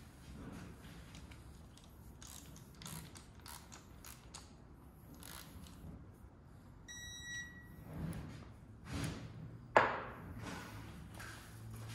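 Digital torque wrench tightening oil pan bolts: scattered light clicks and taps, then one electronic beep of about half a second as a bolt reaches its set torque. Near the end comes a single sharp metal clank, the loudest sound.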